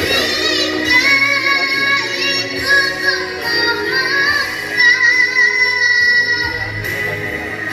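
A child singing high, held notes with vibrato over backing music, the voice strong and full of feeling.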